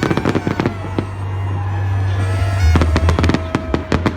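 New Year's aerial fireworks going off in a rapid string of bangs and crackles, densest near the start and again in the last third.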